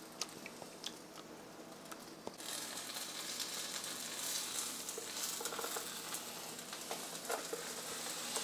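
Egg whites sizzling in a nonstick frying pan while a spatula scrapes and pushes them around the pan, with small scraping clicks. The sizzle gets louder about two and a half seconds in.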